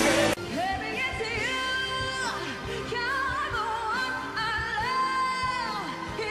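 A woman singing a pop ballad live into a microphone over backing music, holding long high notes that waver and slide down at their ends. A louder passage cuts off abruptly just after the start.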